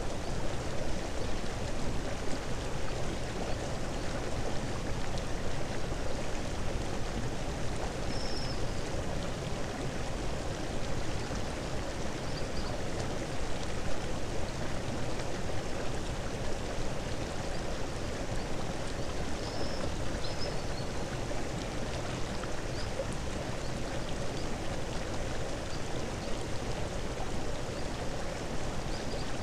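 Steady rushing noise like a flowing stream, even and unbroken, with a few faint high chirps.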